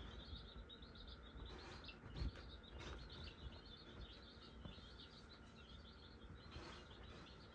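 Faint, steady chirping of birds, many short high chirps in a row, with one soft thump about two seconds in.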